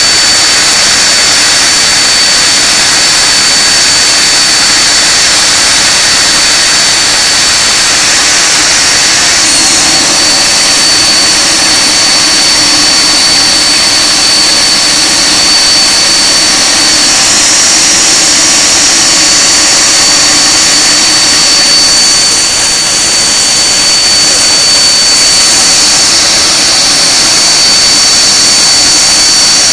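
Rolls-Royce Conway turbofans of a Handley Page Victor K2 running on the ground with the aircraft standing still: a loud, steady jet rush with a constant high whine.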